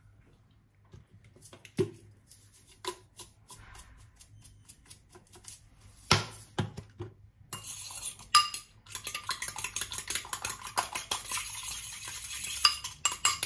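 Metal cutlery clinking and tapping against dishes, a few scattered knocks at first. From about halfway through comes a quick, steady run of clinks and scrapes as a utensil stirs briskly in a ceramic bowl.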